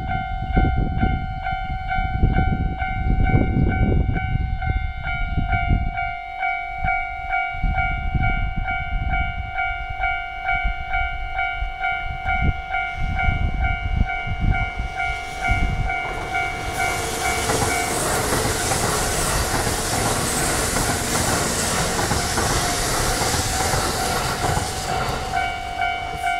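Japanese level-crossing warning bell ringing in rapid, evenly spaced electronic dings. About sixteen seconds in, a Kintetsu electric train passes on the line, its wheel and running noise swamping the bell for about nine seconds before the bell comes through again near the end.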